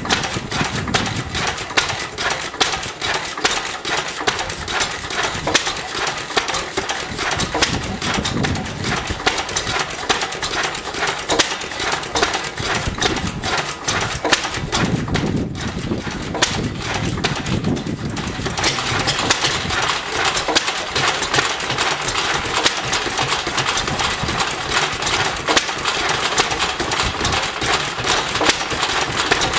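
Vintage Lister single-cylinder stationary engines running, a fast, steady beat of exhaust and valve-gear knocks. The sound gets busier and brighter about eighteen seconds in.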